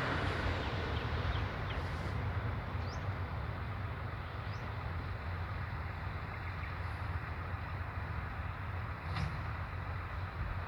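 Engine of a paddy-field rice machine running at a steady drone, with a few faint high chirps over it.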